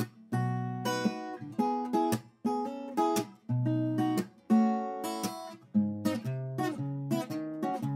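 Acoustic guitar strumming chords in a repeating rhythm, with no singing.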